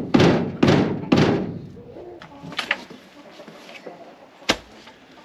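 Four heavy thuds about half a second apart as loose soil is packed down around the base of a newly set wooden post, followed by quieter scraping and one sharp knock about four and a half seconds in.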